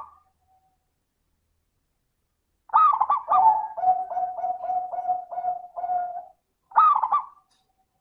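Zebra dove (perkutut) cooing. After nearly three seconds of quiet comes one song phrase, two loud warbling opening notes and then a run of about seven short, even coos. Another loud opening note starts a new phrase near the end.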